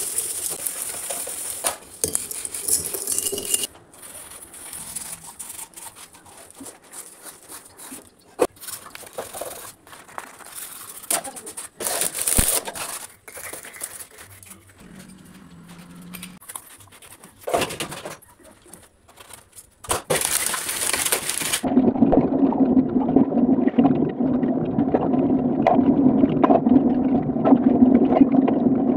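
Kitchen handling sounds: scattered clicks, knocks and scrapes of hands working with a plastic bag and utensils at a counter. About three-quarters of the way in, these give way to a loud, steady rush of tap water running over hands.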